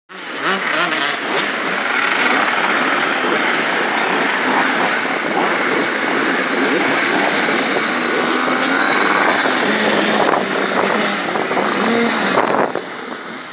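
Many motocross bikes running at once, their engines idling and revving over one another, dipping briefly near the end.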